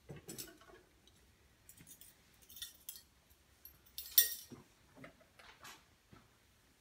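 Metal measuring spoons clinking and jangling as they are handled while dish soap is measured out. There are a few light clinks, the loudest about four seconds in.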